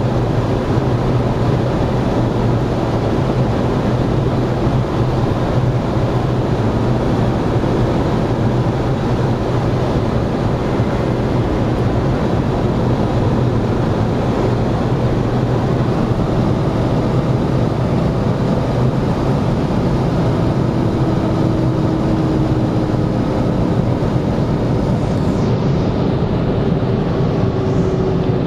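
BMW E46 M3's S54 straight-six at a steady cruise at Autobahn speed, heard from inside the cabin together with wind and tyre noise: a constant, even drone that does not rise or fall.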